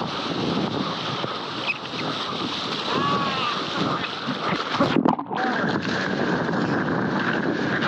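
Water rushing and splashing against a surfboard as it is paddled into and rides a small wave, with wind buffeting the board-mounted microphone. The sound briefly muffles about five seconds in as water washes over the microphone.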